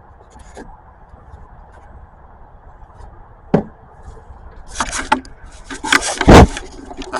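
Hand work on a car battery's hold-down: a few scattered clicks, then knocking and scraping from about five seconds in, with one heavy thump a little past six seconds.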